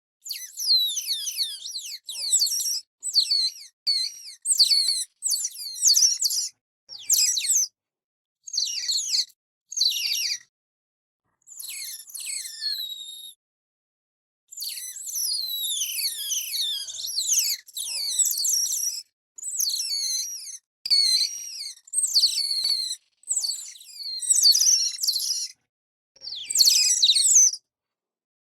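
Otter calling with rapid, high-pitched squeaky chirps, many falling in pitch. The calls come in bursts of a second or two separated by short silences, with a longer unbroken run about halfway through.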